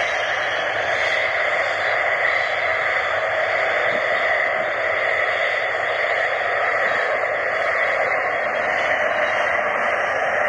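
Panavia Tornado jets taxiing past, their twin RB199 turbofan engines giving a loud, steady, even rush of jet noise.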